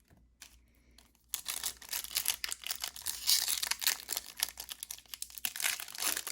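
Foil wrapper of a baseball card pack being torn open and crinkled, starting about a second in.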